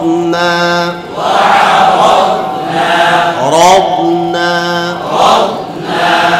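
Male voice reciting Quranic verses in a slow, melodic chant, with long held notes that glide up and step in pitch.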